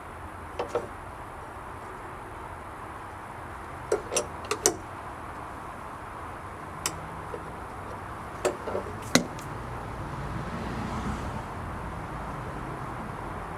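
Scattered sharp clicks and light knocks, singly and in quick groups of two to four, from hasp latch hardware and tools being handled while fitting it to a wooden gate.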